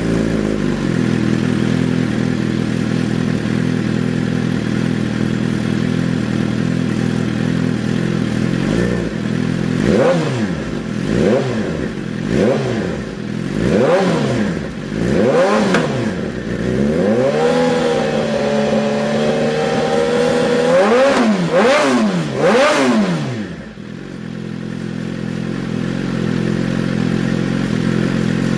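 Engine idling steadily through its exhaust for about ten seconds, then blipped six times in quick succession, held at higher revs for a few seconds, blipped three more times and settling back to idle.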